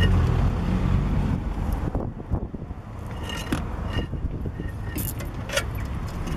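Scattered light clicks and rattles of a brake caliper being handled and hung from a thin plastic strap, over a steady low outdoor rumble.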